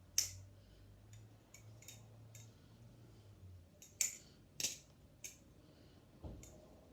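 Sharp, irregular metallic clicks from an aluminium sandwich-construction Glidr Antarctic balisong trainer as it is flipped and rolled, its handles and blade knocking together. There are a handful of loud clicks, the loudest about four seconds in, with fainter ticks between them.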